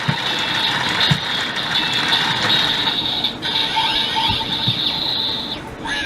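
DX Build Driver toy belt with its crank lever being turned round and round, its plastic gear mechanism ratcheting steadily as it charges up the final attack.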